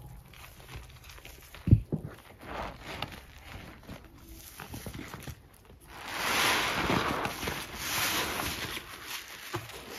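Gloved hands kneading and squeezing a sponge in a bowl of thick, foamy Ajax cleanser paste: wet squishing of foam and sponge. Two dull thumps come about two seconds in, and a longer, louder stretch of squeezing and squelching runs from about six to nine seconds.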